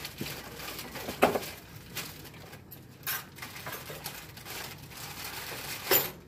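Dental instruments and their packaging being handled in a tray: scattered clinks and rustling, with a sharp knock about a second in and another loud one near the end.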